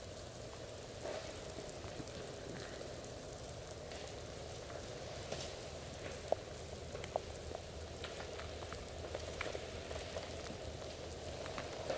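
Freezing rain falling on ice-coated trees and ground: a steady crackling hiss with scattered small ticks.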